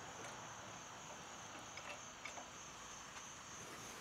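Faint summer background of insects chirring steadily at one high pitch, with a couple of faint ticks around the middle.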